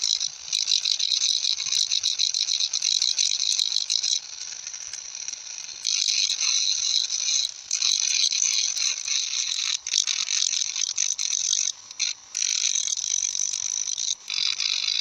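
A metal-working hand tool cutting or scraping metal: a dense rasping full of rapid clicks, easing off for about a second and a half around four seconds in and stopping briefly several times near the end.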